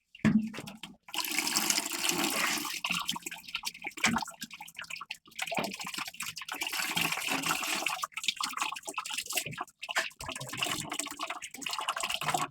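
Blended guava-leaf juice being poured and strained through a sieve into a container: a continuous splashing pour for the first few seconds, then shorter pours with breaks between them.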